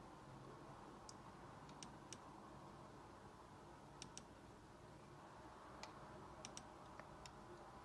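Faint, sharp clicks from working an ASUS laptop's pointer, about ten in all, several in quick pairs like double-clicks, over a faint steady room hum.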